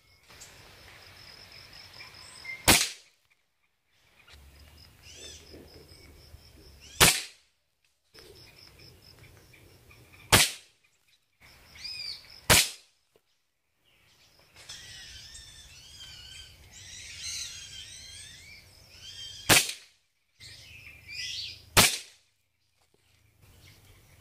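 PCP air rifle firing six sharp shots a few seconds apart. Between the shots, birds chirp and a high pulsed trill runs, with a burst of many bird calls in the last third.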